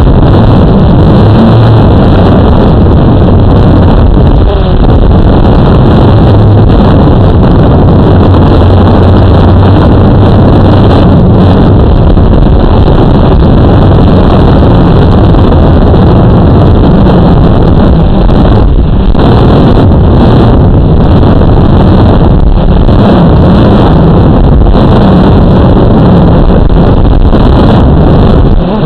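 Electric motors and propellers of a small radio-controlled aircraft heard through its onboard camera: a loud, steady hum whose pitch wavers a little in the second half.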